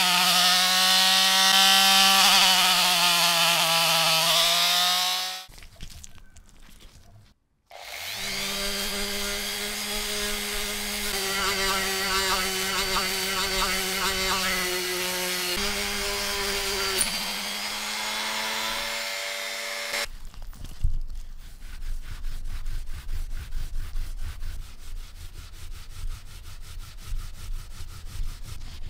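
High-speed handheld rotary tool spinning a polishing wheel against small lighter parts. Its motor whine sags in pitch under load, stops about five seconds in, and runs again from about eight seconds to twenty. After that comes scratchy hand rubbing of a small metal part on a felt cloth.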